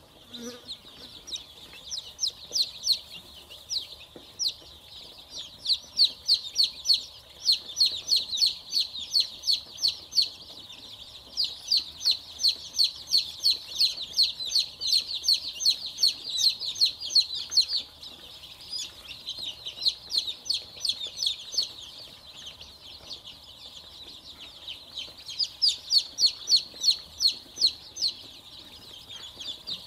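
A flock of Dong Tao chicks peeping together, a dense chorus of short, high, down-slurred peeps, many per second. It swells louder for long stretches and eases off in between.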